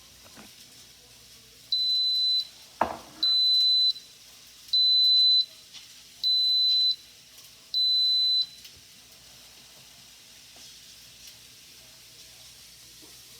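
Amora rice cooker beeping: five high, steady electronic beeps of about two-thirds of a second each, evenly spaced about a second and a half apart, with a single knock between the first two.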